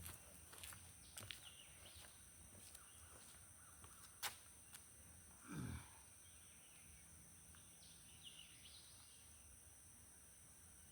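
Near silence with faint outdoor background: a couple of faint bird chirps, a few light clicks, and one brief low swish of handling noise a little past halfway.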